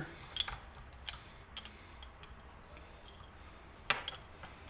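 Metal tool being threaded by hand over the coiled oiler worm gear on a Poulan chainsaw crankshaft, giving a few light metallic clicks and ticks, the sharpest about four seconds in.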